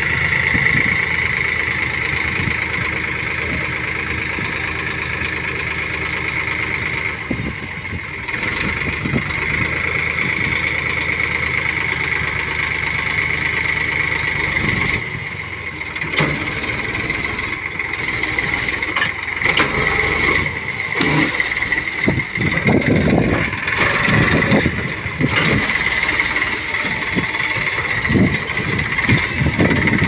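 Eicher 480 tractor's diesel engine running steadily with a constant high whine while its hydraulic tipping trolley dumps a load of soil. Through the second half the sound turns uneven, with frequent knocks and rattles.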